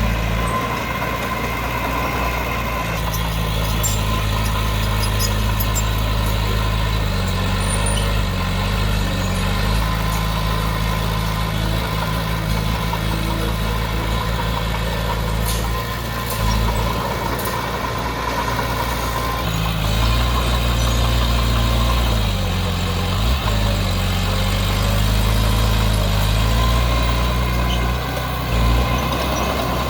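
Heavy diesel earthmoving machinery running: a loud, continuous low engine note that shifts up and down in pitch several times as the load changes.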